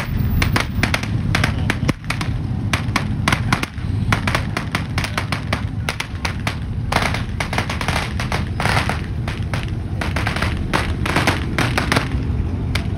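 A rapid, irregular string of sharp pops and bangs, in clusters throughout, over a steady low engine rumble.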